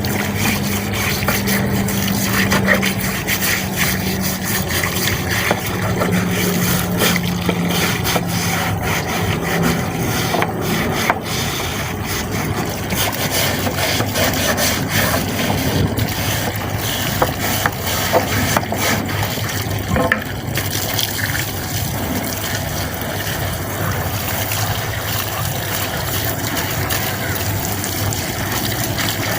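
LG direct-drive front-loading washing machine running, its drum turning with a steady rubbing, scraping noise, scattered small knocks and a low motor hum.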